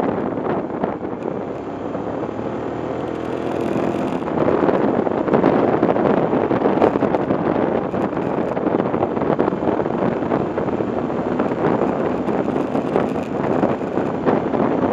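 A road vehicle's engine and wind rush heard from a camera mounted on its front while it cruises along a winding road. The engine note shifts briefly in the first few seconds, then the running holds steady.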